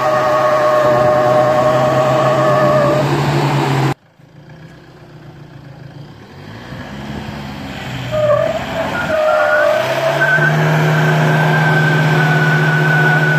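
Tata Safari and Isuzu pickup engines straining at full throttle as the two vehicles pull against each other, wheels spinning in loose dirt, with a steady high whine over the engine note. About four seconds in the sound cuts off abruptly, then the engines build up again from quiet and are back at a steady full-throttle pull for the last few seconds.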